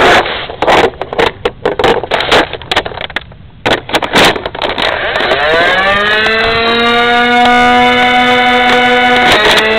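A quick string of clicks and knocks from the blaster being handled. About five seconds in, the electric flywheel motors of a Nerf Cam ECS-10 blaster spin up with a rising whine, then hold a steady high whine, revved and ready to fire.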